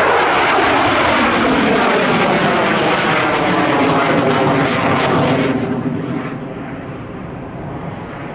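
Saab JAS 39 Gripen's Volvo RM12 turbofan running loud as the jet flies past, with a sweeping, phasing tone. About five and a half seconds in, the sound dulls and fades as the jet moves away.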